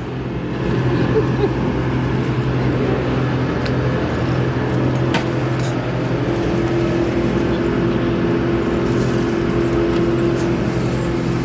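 A large engine from the tree crew's machinery running steadily, its pitch holding level throughout, with a couple of sharp clicks in the middle.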